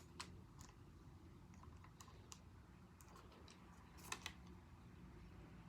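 Faint scattered clicks and taps of small plastic parts being handled while a microphone cable clip is fitted, a quick pair about four seconds in being the loudest.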